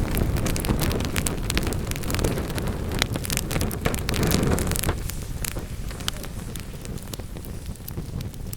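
Wood fire crackling and popping, with many sharp irregular snaps over a low rush of burning flames. The rush eases off about halfway through.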